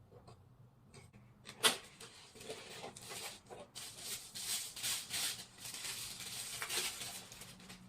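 Packaging being handled during unpacking: a sharp click about one and a half seconds in, then several seconds of irregular rustling.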